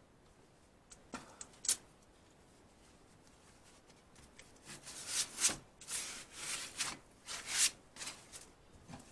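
A few light clicks, then a run of short scraping rubs, two or three a second, as ATV hub parts (the hub's dust cover) are worked back into place on the axle.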